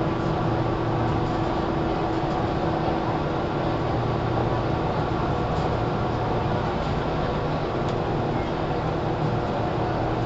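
Running sound inside a JR 413 series electric train's KuMoHa 413 motor car: steady motor and wheel-on-rail noise with a constant hum, running at an even speed.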